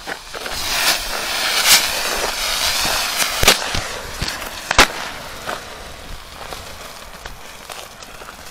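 Four Supertank ground fireworks going off together: a loud fizzing hiss with sharp pops and several bangs, the loudest nearly five seconds in. The hiss then dies down to fainter crackling.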